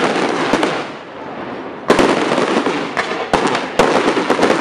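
Aerial fireworks bursting: a dense crackle of burst stars, then from about two seconds in a run of sharp bangs over continuous crackling.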